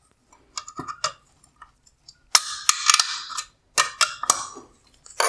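A flathead screwdriver prying at the plastic retaining clips of a headlight projector's black plastic bezel: scattered sharp clicks, a scratchy scraping stretch about two seconds in, then a few more clicks as the clips are worked free.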